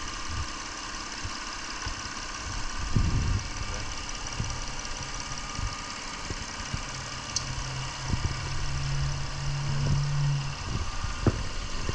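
Mercedes C230 engine idling steadily, with a few short knocks here and there.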